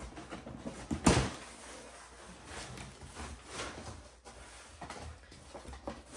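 Cardboard shipping box being opened by hand. About a second in there is a sharp ripping sound as the packing tape comes away, then the cardboard flaps scrape and rustle as they are pulled open.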